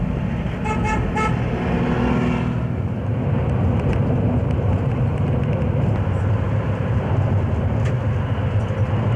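Road traffic heard from inside a moving vehicle: a steady low engine and road rumble, with a few quick car-horn toots about a second in.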